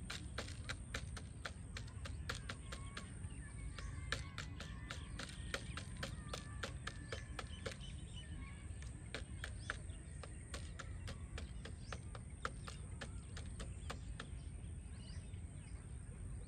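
Outdoor ambience: a steady low rumble under a dense, irregular run of sharp clicks, with faint bird chirps about four to eight seconds in.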